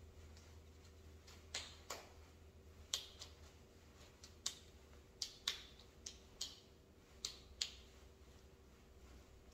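Faint, sharp clicks, about a dozen at irregular spacing in the middle of the stretch, over a low steady room hum.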